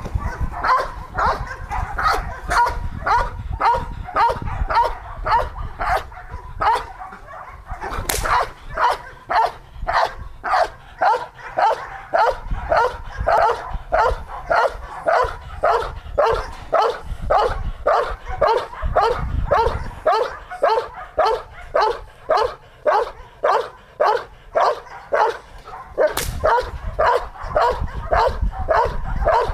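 Belgian Malinois barking incessantly on the leash, about two barks a second without a break. It is the hostile, unbroken barking of an aggressive, reactive dog.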